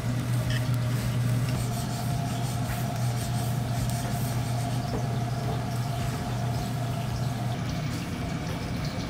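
A steady low hum with a light even hiss over it and a faint steady tone in the middle part.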